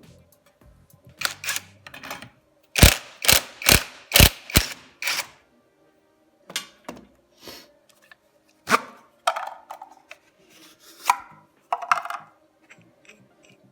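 Hand tools working on a 125cc motorcycle engine during teardown: a series of sharp metallic clicks and knocks, a run of about six in quick succession around two a second, then scattered single ones.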